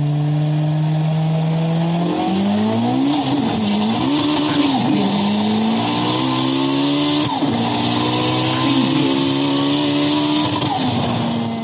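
Racing car engines running at high revs. The pitch holds steady for about two seconds, then rises and falls repeatedly as they rev, with sudden drops like gear changes about seven seconds in and again near the end.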